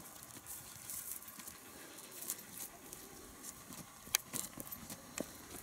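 Handling noise from a cardboard model plane: faint rustling over low hiss, with a few sharp clicks, the loudest about four seconds in. Its electric motor is not running.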